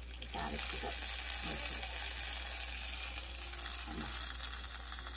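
Hot coconut-oil tempering of mustard seeds, shallots, dried red chillies and curry leaves sizzling as it hits a potato curry in coconut milk. The sizzle starts a moment in and slowly dies down, and a wooden spoon stirs it in near the end.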